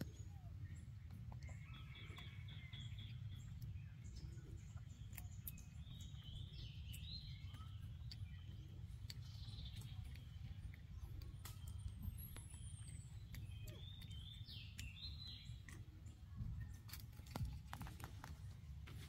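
Faint outdoor ambience: a steady low rumble with birds chirping now and then in the distance, and a few light clicks near the end.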